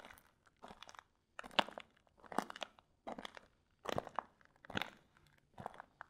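Shoe footsteps crunching on gravel and ice in a steady walk, about eight steps, a little over one a second. Each step is a short cluster of gritty crunches.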